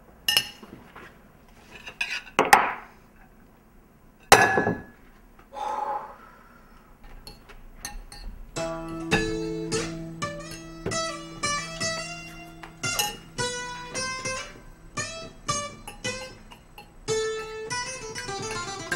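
A few sharp clinks and knocks in the first half, then an acoustic guitar picking a lively tune of plucked notes that runs through the second half.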